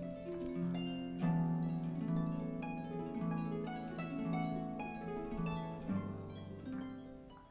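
Background music of plucked strings, harp-like, playing a gentle melody over chords, which fades out near the end.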